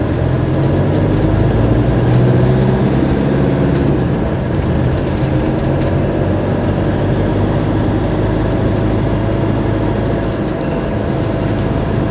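Fiat Ducato diesel engine and road noise heard from inside a motorhome's cab while driving; the engine's low drone is strongest for the first few seconds as it pulls along, then settles to a steady cruise.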